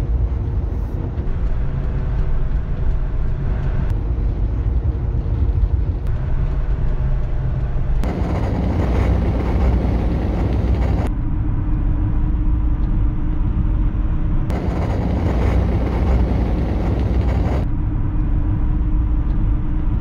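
Road and wind noise inside the cabin of a 2007 Subaru Forester XT cruising at 50 and then 70 mph, with abrupt switches every few seconds between recordings made before and after the fix. The stretches with the brighter, hissier sound are from before the fix, when air got past the worn window gussets. The felt-sealed stretches sound duller.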